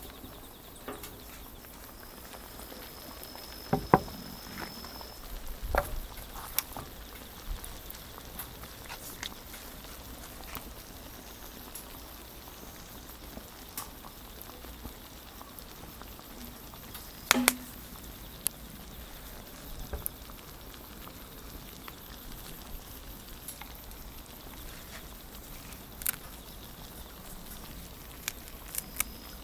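Wood fire crackling softly, with scattered pops and clicks and a few louder knocks, the loudest a quick double knock about seventeen seconds in.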